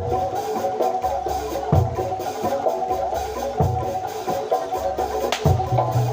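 Jaranan Dor ensemble music: fast interlocking notes on gamelan-style metallophones and gongs over a deep jidor bass drum, which strikes about every two seconds.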